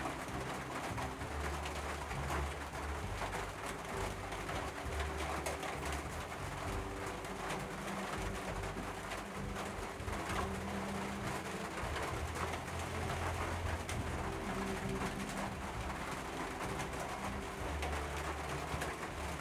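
Doves cooing in low, repeated phrases, each held a second or two, over a steady hiss.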